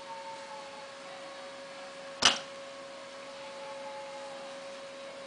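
A single sharp click about two seconds in as a hard plastic squeegee is picked up off a glass tabletop, over a steady electrical hum.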